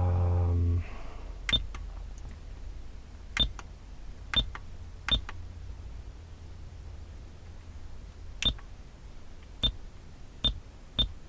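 Car stereo head unit being worked through its controls: button presses, each with a short high beep, about eight at uneven intervals. A brief low buzz opens the sequence, and a faint low hum runs underneath.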